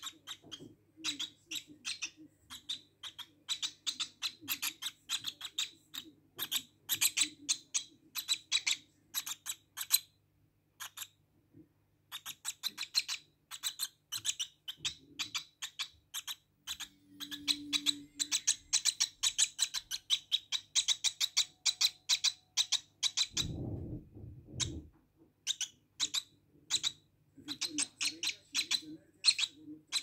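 Lovebird chick cheeping in quick runs of short, high chirps, pausing briefly about ten seconds in. A low thump, the loudest sound, comes about two-thirds of the way through.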